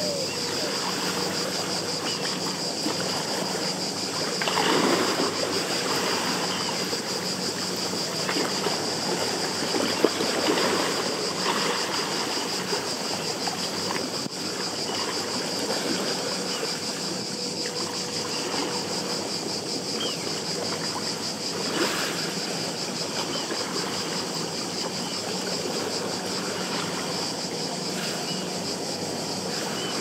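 Lake water lapping at the shore, swelling now and then, under a steady high insect chorus with a fast, even pulse. A faint, steady drone from a distant motorboat runs underneath.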